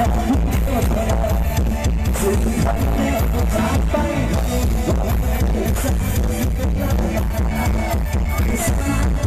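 Loud dance music with a heavy bass beat blasting from a Thai parade sound truck's loudspeaker system, recorded live on a phone close to the truck.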